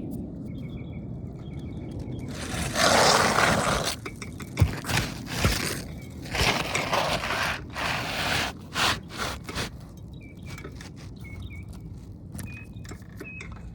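Asphalt shingle scraping against the surrounding roof shingles as a replacement is worked into place under the course above, in several rough scraping strokes over the middle of the clip, with a sharp knock about four and a half seconds in.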